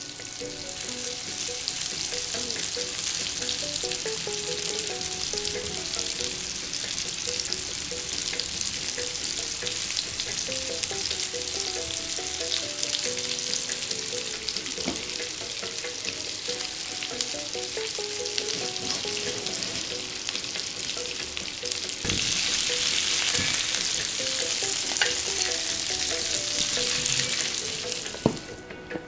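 Sausage-meat balls coated in fried onions frying in hot olive oil in a pan, with a steady crackling sizzle that grows louder about two-thirds of the way through and cuts off just before the end.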